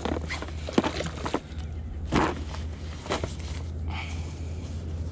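Rustling and knocking of a nylon dry bag being rummaged through for pliers, in short bursts, over a steady low rumble.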